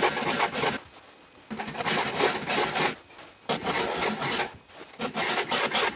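Hand file rasping against the steel cutting teeth of a chainsaw chain while they are sharpened by hand. It comes in four bursts of quick strokes with short pauses between them.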